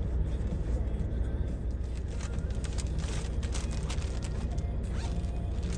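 Plastic packaging rustling and crinkling in short, faint clicks as a prosciutto pack and a Ziploc bag are handled, over a steady low hum.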